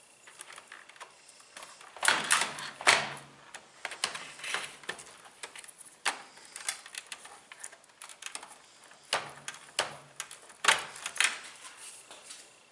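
Irregular clicking, clattering and knocking of plastic and metal washer parts being handled and pried apart during disassembly, with the heaviest clusters about two seconds in and again about nine seconds in.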